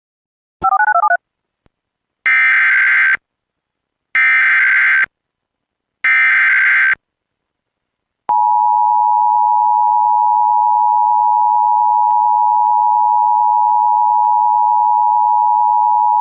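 Emergency Alert System header and attention signal. A brief warbling beep is followed by the three roughly one-second bursts of the SAME digital header, each a buzzy data screech. Then the steady two-tone 853/960 Hz EAS attention signal sounds for about eight seconds, announcing an alert.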